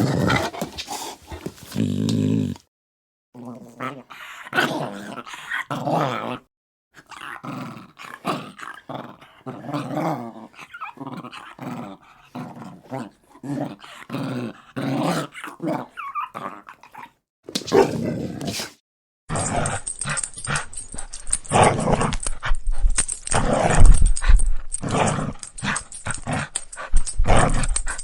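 Dogs growling in a string of separate recordings spliced together, the growls coming in rough pulses with short silent breaks between clips.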